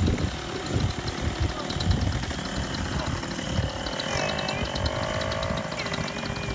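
Wind buffeting the microphone in gusts, the loudest hits at the start and about two seconds in, over a paramotor engine running at idle while the wing is inflated for launch.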